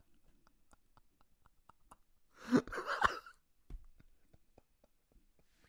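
A short, breathy burst from a person's voice about halfway through, between faint clicks.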